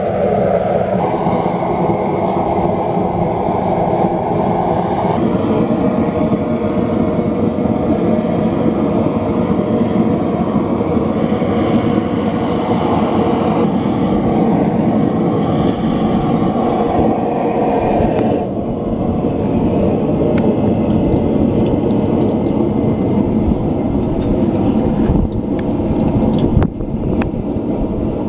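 Gas burner of a backyard metal-melting furnace firing at full, a steady loud roar whose tone shifts a few times. A few sharp clicks come near the end.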